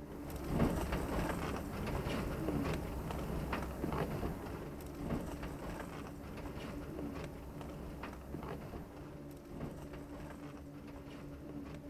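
A bird calling in short, low cooing notes, with scattered sharp clicks and a faint steady hum behind; the calls are loudest in the first few seconds and then fade.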